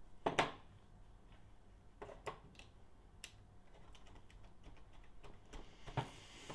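Scattered clicks and taps of small metal hardware and hard plastic being handled: bolts and nuts being fitted into a 3D-printed linear bearing. The sharpest knocks come about half a second in and again near the end.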